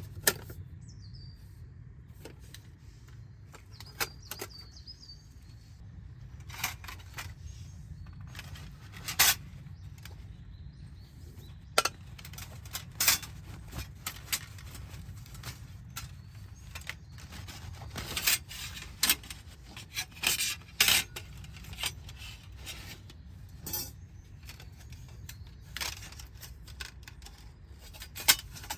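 Metal camp gear handled, giving scattered irregular clinks and clatters, busiest in the second half, over a low outdoor rumble with faint bird chirps early on.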